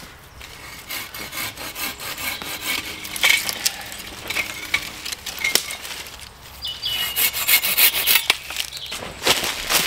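Hand saw cutting through a green hazel shoot in quick back-and-forth strokes. There is a short pause about six seconds in, then louder strokes near the end.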